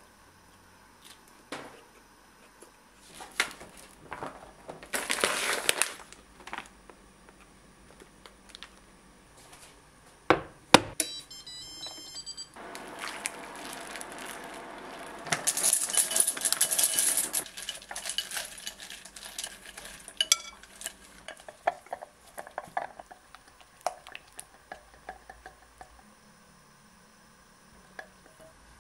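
Kitchen dish sounds: scattered clinks and knocks of a glass bowl and pot, then water poured from a pot for several seconds midway to set up a double boiler. After that comes a run of light taps and scrapes as a wooden spoon stirs melted chocolate in a glass bowl.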